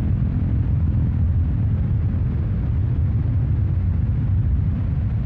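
A steady deep rumble, loud and even, with its weight in the low bass and no clear pitch or beat.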